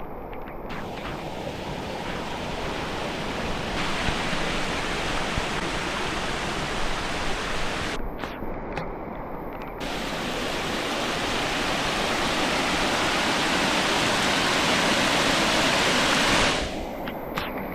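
Loud, steady rush of water: heavy typhoon rain and runoff pouring down a mountain trail. It grows louder and drops off abruptly near the end.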